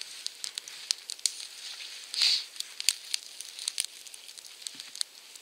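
Small kindling fire of spruce twigs crackling, with irregular sharp snaps throughout. A brief hiss about two seconds in.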